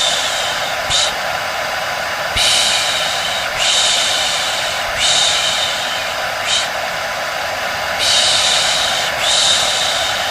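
Hair dryer running steadily with a faint hum, while a person shushes ('shh') over it in repeated hissing bursts, some long and some short, about one every second or so.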